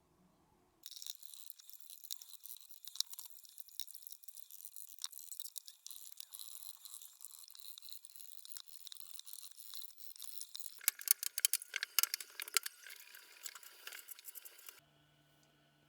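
Scratchy scraping and scrubbing on the tile grout joints by hand, a dense crackle of small clicks. It grows louder and coarser for the last few seconds and stops suddenly.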